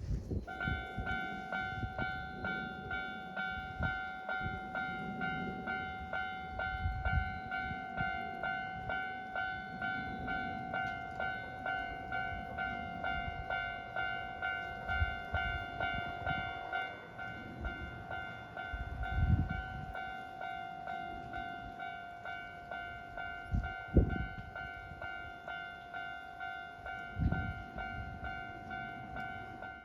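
Japanese railway level crossing alarm ringing its repeating electronic bell, about two dings a second, warning that a train is approaching. A few low thuds sound in the second half.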